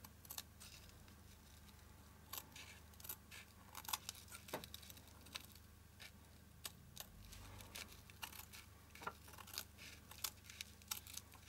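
Fabric scissors snipping through thick satin ribbon in short, quiet, irregular cuts.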